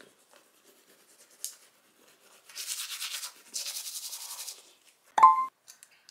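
A toothbrush scrubbing teeth in two bouts of quick back-and-forth strokes. About five seconds in there is a brief sharp clack with a short ringing tone.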